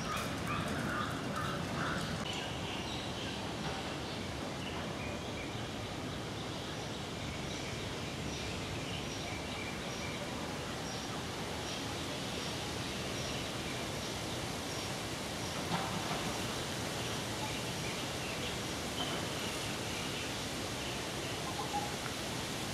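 Outdoor garden ambience: a steady hiss with faint, scattered bird calls, and one brief knock about two-thirds of the way in.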